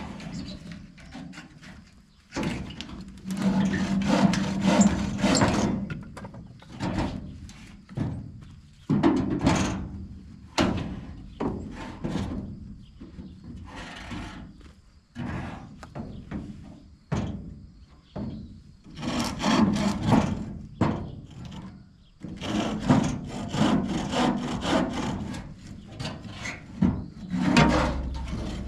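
A saw cutting through the wood of a downed tree in rough back-and-forth strokes. It comes in runs of a few seconds with short pauses between them.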